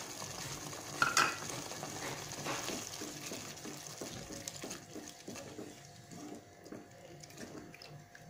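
Wooden spatula stirring and scraping through thick chicken curry gravy in a nonstick pot, a little water just mixed in, in many short, irregular strokes with a louder stroke about a second in. A light sizzle dies down after about five seconds.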